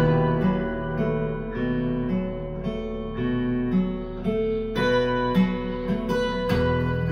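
Acoustic guitar music played back through KEF LS60 Wireless speakers, with plucked and strummed notes following one another.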